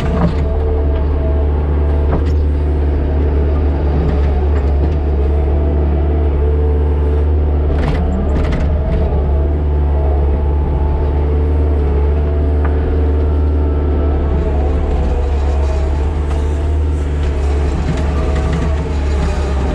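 Earthmoving machine's engine running steadily under work, a constant low drone, with a couple of brief knocks about eight seconds in.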